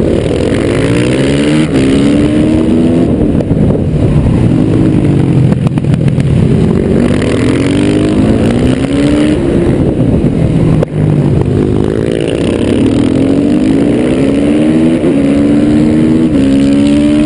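Yamaha YZ450F single-cylinder four-stroke engine revving hard and shifting through the gears, heard on board: its pitch climbs again and again, dropping back at each gearchange or lift of the throttle.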